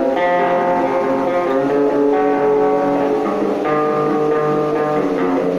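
Electric guitar being played, several notes ringing together as the chords change about every second.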